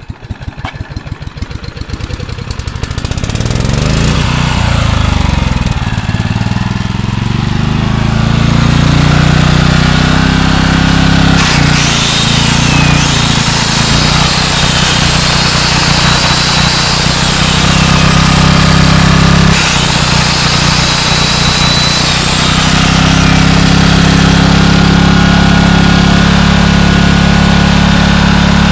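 Generac 4000-watt portable generator's engine catching on a pull start, its rapid firing building up over the first few seconds, then running steadily. The engine note shifts a few times as it runs.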